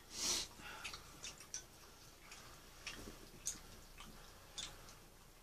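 Scattered light clicks and taps of chopsticks against a hot-pot pan and a small ceramic bowl as food is picked out and eaten. A brief, louder rush of noise comes just at the start.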